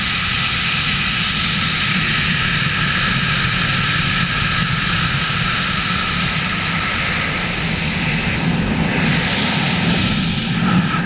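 Steady rush of wind over a helmet-mounted camera in wingsuit flight, the airflow noise loud and unbroken.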